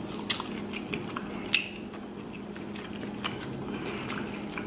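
Scattered small wet clicks and cracks close to the microphone as a cooked lobster tail is pulled apart by hand and the meat taken out of the shell.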